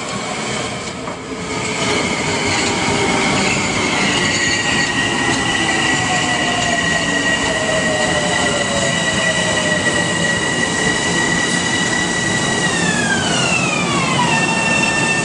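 Metro-North Bombardier M7A electric multiple-unit train pulling into the station, its running noise carrying several high steady whines. Near the end the whines step down in pitch together as the train slows toward its stop.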